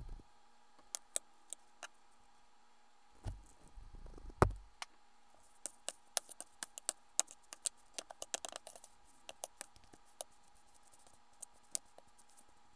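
Stainless steel kitchen tongs clicking and tapping against a metal sheet tray as raw short ribs are picked up and turned, with one dull thump about four seconds in, followed by a run of quick sharp clicks.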